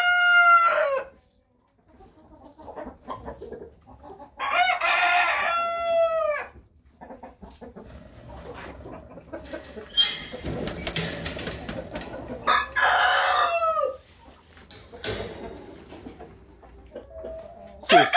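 Roosters crowing, several long crows a few seconds apart, with hens clucking between them.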